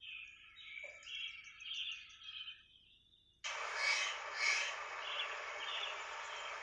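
Forest birds chirping. About halfway through, a louder steady rushing hiss starts suddenly and carries on, with the birdsong still heard over it.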